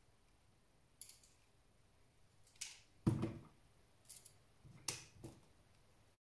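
A few sharp clicks and light knocks from hands handling parts inside a desktop PC case, the loudest a heavier thump about three seconds in. The sound cuts off abruptly shortly before the end.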